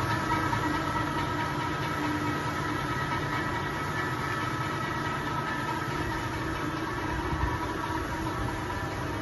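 SCS Automaberg Easy Fly front-edge cutting machine running empty, a steady mechanical hum and whir of its motors with several steady tones held over it and no cutting strokes. It grows gradually a little quieter.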